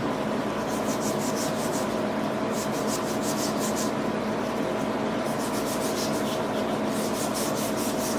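Motor-driven wire wheel running with a steady hum while a rusty chef's knife blade is worked against it, scratching in quick repeated strokes as the wire strips rust and residue from the steel.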